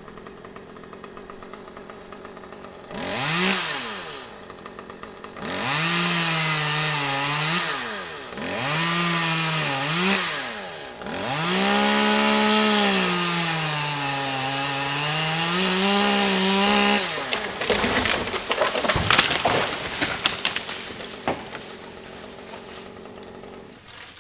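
Gas chainsaw idling, then revved and cutting dead oak in several runs, its engine pitch sagging and rising under load. Then a few seconds of sharp cracking and snapping as the wood breaks.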